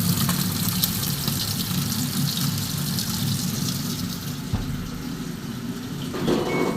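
Water running steadily into a washing machine, a continuous rush with a low hum beneath it and a brief louder surge near the end.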